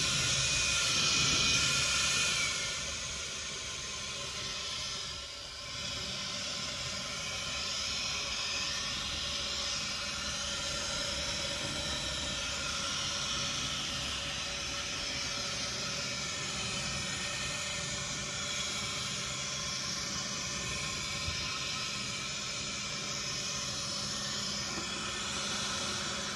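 A blower running steadily, blowing air at the door, heard as an even rushing hiss. It is a little louder for the first couple of seconds.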